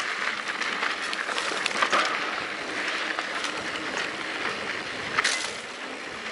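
Mountain bike rolling down a dry, rocky dirt trail: tyres crunching over loose gravel, with the frame and parts rattling and clicking, and one sharper clack about five seconds in.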